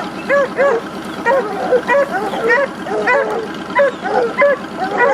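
Hog-hunting dogs barking in short, repeated barks, a few a second, several dogs overlapping at different pitches.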